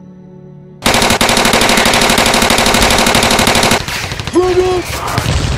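Soft music cut off about a second in by loud, rapid automatic gunfire, a machine-gun sound effect that runs for about three seconds. After it comes a short pitched sound, then more shots.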